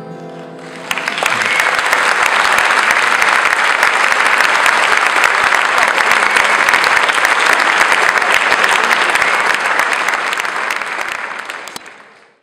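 A theatre audience applauding, starting about a second in as the last strummed acoustic guitar chord dies away, and fading out near the end.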